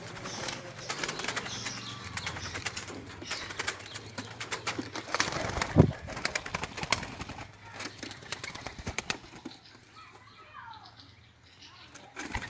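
Captive puter doves (Barbary doves) cooing low, mixed with wing flaps and many sharp taps and clicks, and one loud thump about halfway through.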